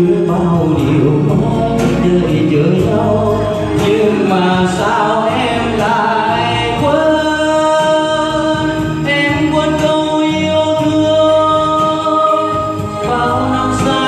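A man singing into a handheld microphone over instrumental backing music, played loud through a PA. Long notes are held from about halfway through.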